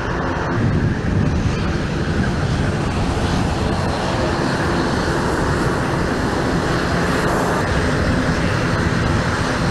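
Aircraft engine noise: a loud, steady drone with a low hum underneath.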